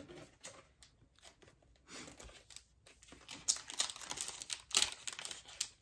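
Foil wrapper of a Pokémon card booster pack crinkling and being torn open. It is a run of sharp crackles that starts about three seconds in, after a few faint ticks.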